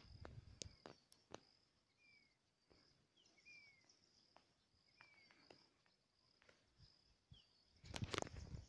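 Faint hillside ambience: a steady high insect trill with a few short, falling bird chirps and scattered light ticks, then a brief, louder scuffing rustle near the end.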